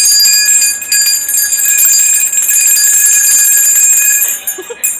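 Bells shaken and rung continuously: a loud, dense jingling with a few steady bright ringing tones, which breaks off just before the end.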